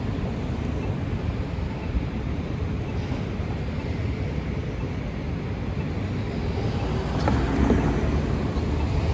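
Road traffic with a steady low rumble and wind buffeting the microphone, growing louder about seven seconds in.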